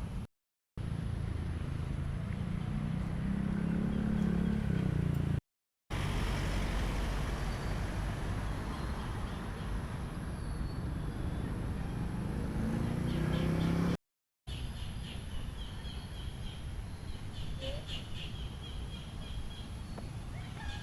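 Outdoor sound in short cut-together clips: a steady low rumble of passing traffic with engine tones rising and falling, then, after the last cut, repeated high bird chirps over a fainter rumble.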